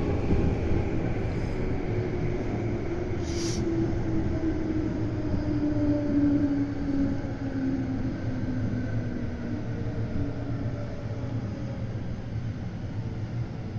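Meitetsu 200 series electric train running, with the rumble of wheels on rail and a motor whine that falls slowly in pitch from about four to ten seconds in as the train slows. A short hiss comes about three and a half seconds in.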